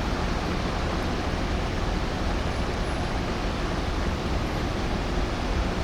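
Steady rushing road-traffic noise, with no siren or distinct engine sound.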